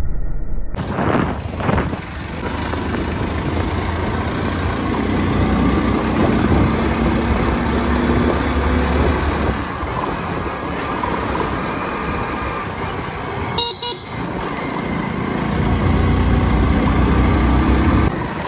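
Motorcycle riding along a road: engine running steadily under a continuous rumble of wind on the microphone, with surrounding traffic.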